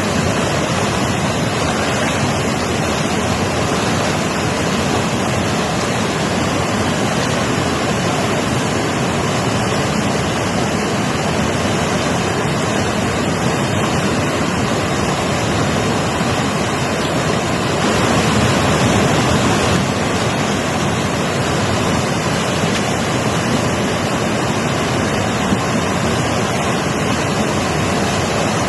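Mountain river rushing, a loud steady roar of fast water with no break, swelling slightly about two-thirds of the way through.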